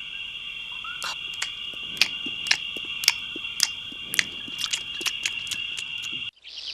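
Cartoon night ambience of crickets chirring in a steady high drone, with sharp crunching clicks about twice a second from the animals munching. The ambience cuts off abruptly near the end.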